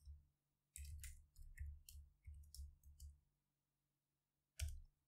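Faint computer keyboard keystrokes as a name is typed: a quick run of about a dozen clicks over two seconds, then one more click near the end.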